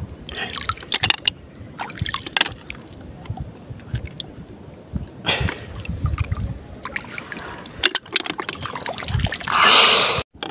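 Hands splashing and dripping in shallow seawater while picking spider conchs off a seagrass bed: scattered small splashes and clicks, with a louder splash lasting about half a second near the end.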